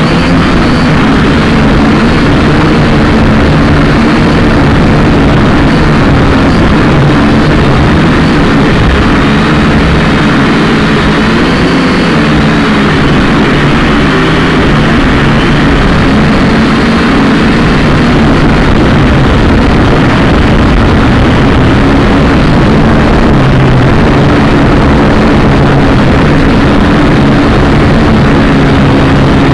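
Drone propellers and motors buzzing steadily in flight. The hum's pitch drifts up and down as the motors change speed, over a constant rumble.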